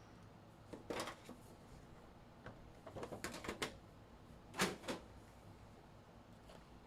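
Light clicks and rustles of a trading-card box and its packaging being handled and opened, with a quick run of ticks about three seconds in and the loudest clicks a little later.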